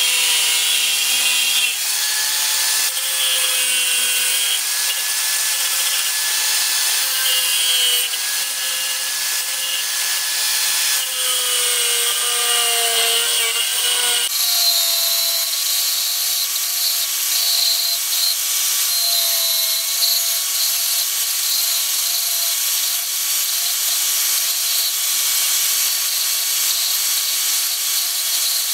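Electric angle grinder with a thin cutting disc running and cutting into a plastic sheet: a continuous high whine over a hiss of cutting, the pitch dipping now and then under load. The tone changes about halfway through as the work moves on to trimming a cut piece's edge against the disc.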